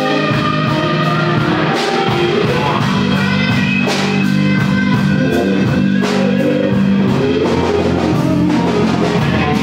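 A live band playing, with guitar prominent over held notes and a sharp accent about every two seconds.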